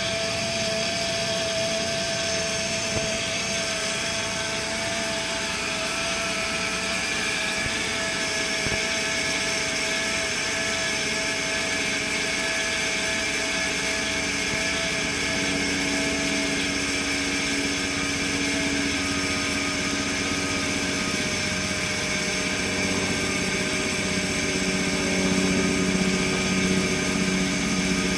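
2003 Honda Accord running just after a start-up, with a loud, steady high-pitched whine over the engine; a lower hum joins about halfway through. It is a cold-start whine that the owner says comes every time he starts the car and goes away after about 20 minutes, cause unknown.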